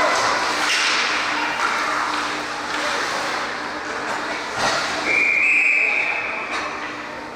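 Ice hockey arena crowd noise with voices, a sharp knock about four and a half seconds in, then a referee's whistle blown once for about a second.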